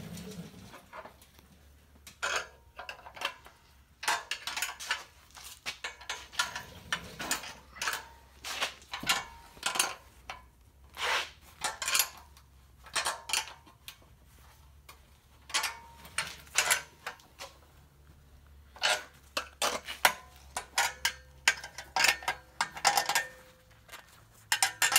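Wrench clinking and clicking against steel nuts and bolts as 5/16-inch nuts are tightened down on the bolts through a hand-truck dolly frame. The clicks come in short irregular clusters, some with a faint metallic ring.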